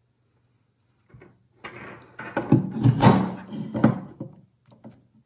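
An Ethernet cable being handled: rustling and light knocks as its loops are gathered and sorted in the hands, starting about a second and a half in and dying away near the end.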